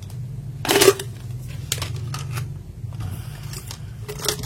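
Keys tapped on a mechanical keyboard fitted with PBT Cherry-profile keycaps, testing how the PBT plastic sounds: a handful of scattered key clacks, the loudest about a second in, over a steady low hum.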